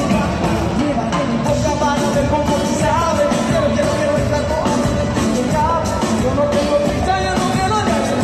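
Live pop band playing with singing, a steady full mix heard from among the audience, the melody gliding up and down.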